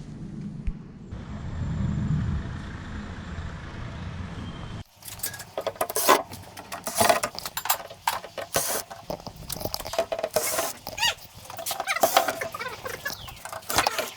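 A steady low rumble of a vehicle running for about five seconds. It cuts off abruptly, and irregular metallic clanks, clicks and knocks of tools and metal parts being handled follow.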